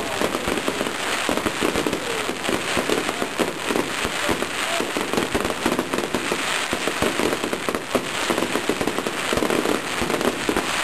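Fireworks display going off: a continuous dense crackle of many small rapid bangs with no pause.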